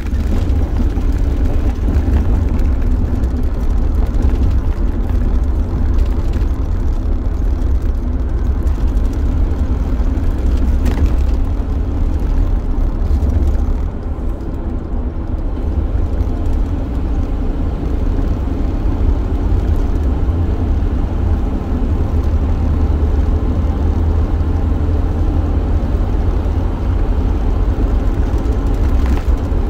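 Van driving, heard from inside the cabin: a steady, loud low rumble of engine and road noise with a faint engine hum, easing slightly about halfway through.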